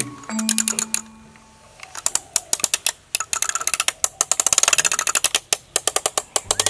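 Plastic toy motor grader pushed by hand through sand, giving a rapid run of ratchet-like clicks that grow denser partway through. A held musical note fades out just before the clicking starts.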